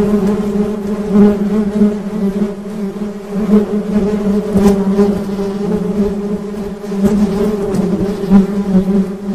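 Honey bees buzzing: a steady low hum of beating wings, wavering slightly in loudness.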